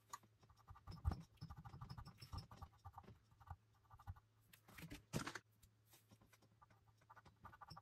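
Faint scratching of a cotton swab damp with rubbing alcohol rubbing the printed number board off a plastic HO scale locomotive shell, in short irregular strokes. There is a louder scrape about a second in and again about five seconds in.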